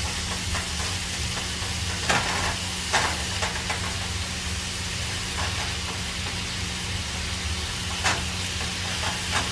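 Thin-sliced marinated steak pieces sizzling in melted butter in a hot frying pan as more pieces are laid in by hand. The sizzle is a steady hiss, with a few sharp crackles and spits.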